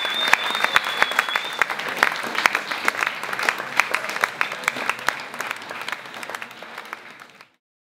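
Audience applauding, with many hands clapping, fading away and cutting to silence about seven and a half seconds in. A high wavering tone sounds over the clapping for the first second and a half.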